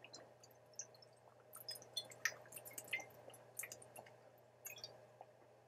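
A man drinking water from a glass bottle: faint swallows and small sloshing, dripping clicks of the water in the bottle, irregular throughout.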